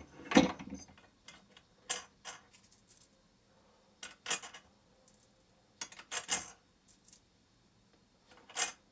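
Small metal fasteners clinking and tapping, about ten separate light knocks with quiet gaps, as they are handled and slipped into the slots of the CNC router's frame rails. The loudest knock is about half a second in.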